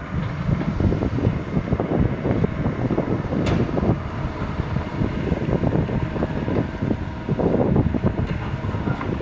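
Kobelco 220 hydraulic excavator's diesel engine running, heavily buffeted by wind on the microphone, with one sharp click about three and a half seconds in.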